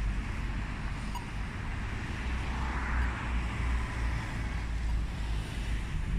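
Outdoor wind noise: wind rumbling unevenly on the microphone over a steady rushing hiss, starting abruptly.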